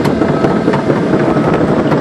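Komatsu PC220LC-6 hydraulic excavator running and working, a loud steady machine noise with a whine and several sharp metallic clanks.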